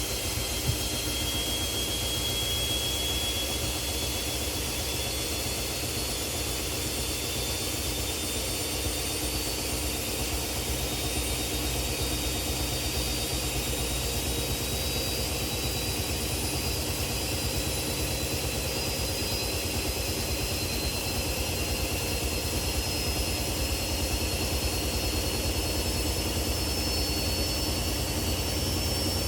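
Front-loading washing machines spinning: a steady drum rumble under a thin motor whine that climbs slowly in pitch as the drum speeds up.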